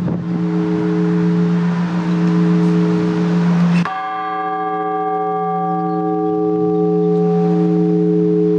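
Orthodox church bells ringing: a deep bell's long humming tone hangs throughout, with a rushing noise over it for the first four seconds. About four seconds in the noise stops and a higher bell is struck, its ringing slowly fading over the deep hum.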